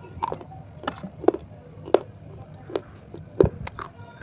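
Close-miked chewing of pieces of a dry, crunchy clay roll: irregular sharp cracks and crunches about every half second, the loudest a little past three seconds in.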